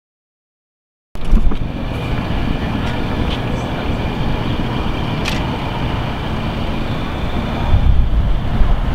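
Silent for about a second, then outdoor ambience: a steady low rumble of wind buffeting the microphone, gusting harder near the end, with a few faint clicks.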